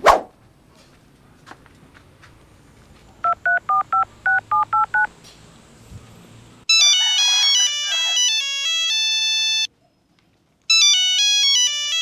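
Phone keypad tones as a number is dialed, about ten quick two-tone beeps. A few seconds later a mobile phone rings with a melodic ringtone, which stops briefly and then rings again.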